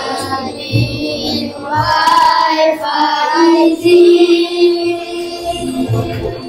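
A group of boys singing a Hari Raya song over a backing track, with a long held note around the middle.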